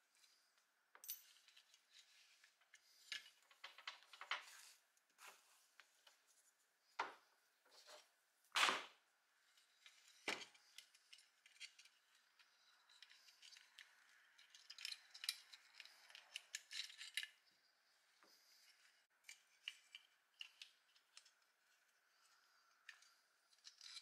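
Faint metallic clicks, rattles and scrapes as the wires, switch and heating element of a vintage Sears Kenmore hair dryer are worked loose from its metal housing by hand, with one louder knock about a third of the way in.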